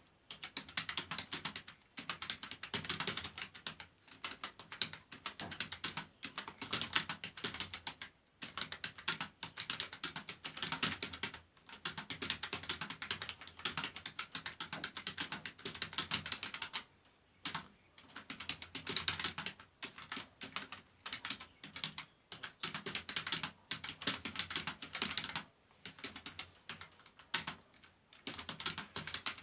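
Fast typing on a computer keyboard: rapid, continuous key clicks in long runs, broken by brief pauses every few seconds.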